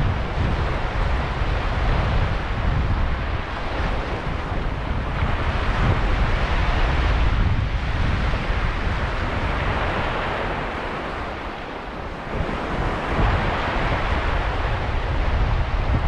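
Sea waves breaking and washing over a sand and pebble shore, the wash swelling and fading every few seconds. Wind buffets the microphone with a steady low rumble underneath.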